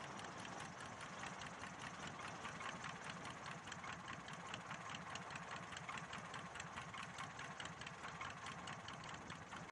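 Single-engine light aircraft's piston engine running at low power near idle, a fast even beat of firing strokes, with wind noise over the outside-mounted microphone as the plane rolls along the runway.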